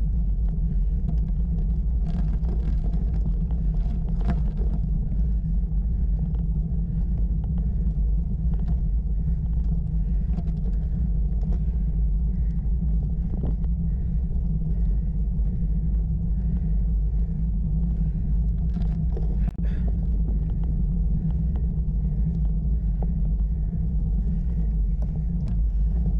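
Steady low rumble picked up by a bicycle-mounted camera as the bike climbs a rough tarmac road, with a few faint ticks.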